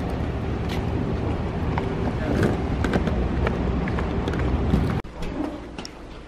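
Low, steady rumble of a car, heard from inside it, with small clicks and rustles of things being handled. About five seconds in it cuts off abruptly to a much quieter room.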